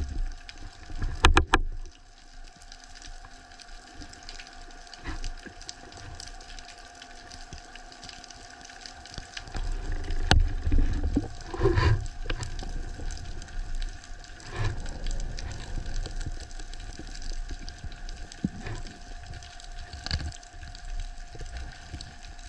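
Underwater sound picked up through a camera housing on a freediving spearfisher: low water rumble and swishing as the diver moves, with a few sharp clicks and knocks, the loudest cluster about a second in, over faint steady tones.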